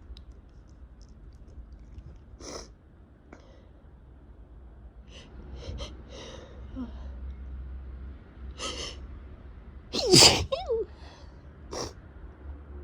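A person with a head cold sneezing, one loud voiced sneeze about ten seconds in, with shorter breathy intakes and sniffs before and after it, from a runny, irritated nose.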